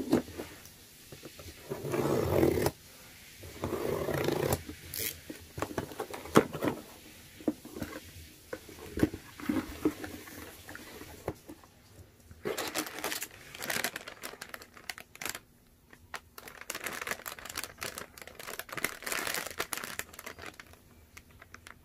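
A cardboard parcel being cut open and unpacked: a box cutter scraping through packing tape and cardboard flaps knocking and rustling, then a thin plastic bag crinkling through much of the second half as it is handled.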